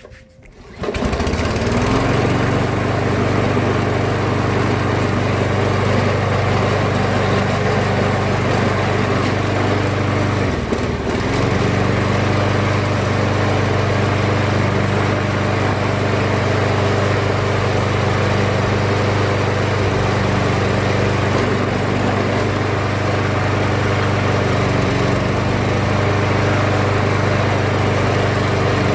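The Kohler engine of a Toro Recycler 22 walk-behind mower catches on the first pull about a second in, on its first start of the season. It then runs steadily at speed, with a brief dip in engine speed around the middle that recovers at once.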